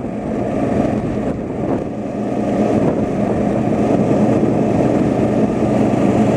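Steady engine and road noise of a moving car, heard from inside the cabin, with a constant low hum.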